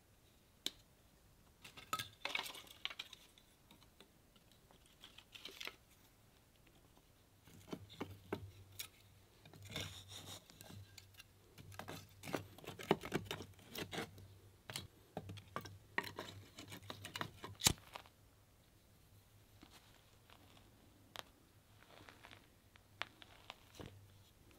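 Objects being handled: irregular light clicks, knocks and short rustling bursts, busiest in the middle.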